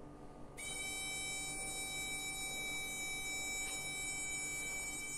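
Small SG907 quadcopter motor spinning up on the bench, run straight off a battery: a steady high-pitched whine starts about half a second in and holds at one pitch.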